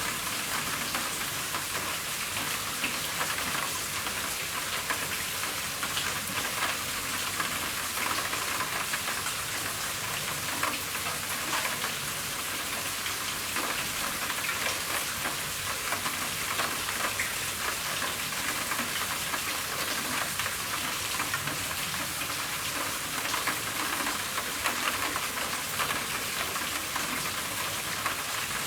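Steady rain falling on a roof: a constant hiss with a dense scatter of individual drop ticks, even in level throughout.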